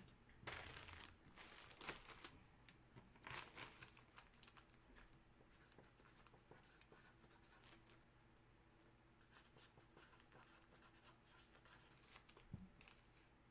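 Near silence: room tone with a low hum, and a few faint scratching or rustling sounds in the first few seconds.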